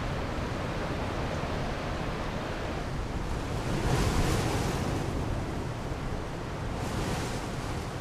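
Wind blowing in gusts: a steady rushing that swells loudly about three to five seconds in and again briefly near the end.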